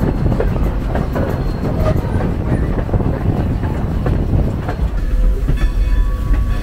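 Strasburg Rail Road steam locomotive No. 90, a 2-10-0, running along the track, heard close from its front end: a heavy rumble with wheels clicking over the rail joints. About five seconds in this gives way to a steadier rumble with several steady high ringing tones.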